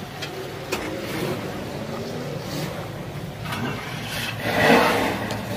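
Car engine idling steadily, with a few faint clicks and a louder rush of noise near the end.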